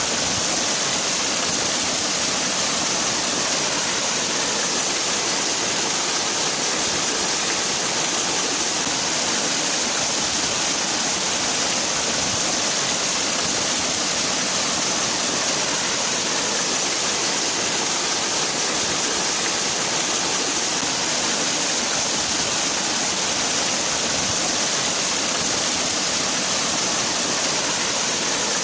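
Waterfall: water falling and rushing in a steady, unbroken roar of white-noise-like hiss, brightest in the high range, with no change.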